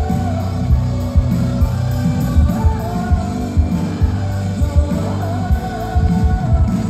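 A woman singing live into a microphone with loud backing music: long held, wavering notes over heavy bass and repeated drum hits.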